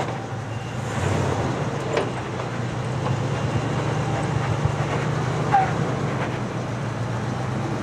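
Dodge Power Wagon pickup's 345-horsepower Hemi V8 running steadily at low speed as the truck crawls over rock.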